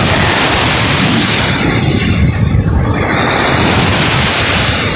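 Big ocean waves surging and breaking on the shore as a loud, continuous wash of surf, with wind buffeting the microphone underneath.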